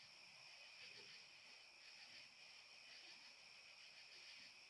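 Near silence, with a faint, steady chirring of crickets.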